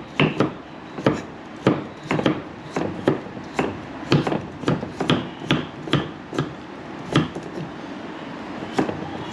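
Cleaver and knife slicing carrot on thick round wooden chopping blocks. Each stroke ends in a sharp knock of the blade on the wood, about two a second, with a short lull near the end.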